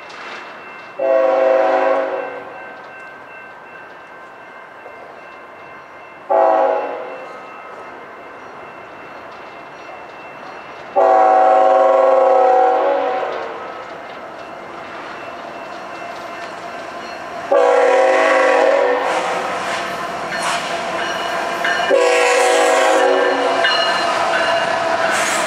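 Union Pacific freight locomotive's air horn sounding five chord blasts as the train approaches a grade crossing, the second one short. In the second half the rumble and rattle of the locomotives and double-stacked container cars passing close builds up under the horn.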